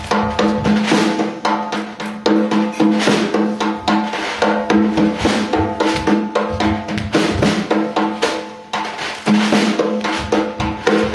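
Hand-played frame drum struck in quick, irregular strokes, several hits a second, over a steady low ringing tone.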